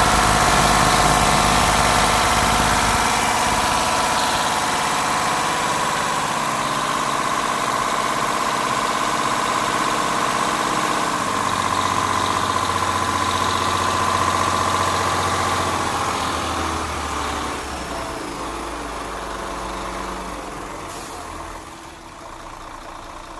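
Mercedes-Benz six-cylinder V diesel engine idling steadily, growing quieter over the last few seconds.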